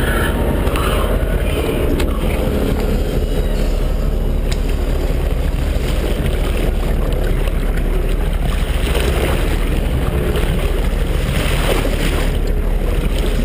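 Steady low rumble of a sportfishing boat under way, with wind on the microphone and water rushing and splashing against the hull where a billfish is held alongside; the splashing grows louder near the end.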